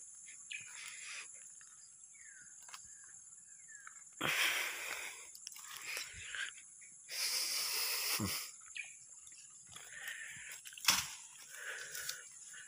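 Hands scooping and pressing wet soil and grass to close a gap in a rice-paddy dike: soft rustling and small clicks, with two longer hissing swells about four and seven seconds in.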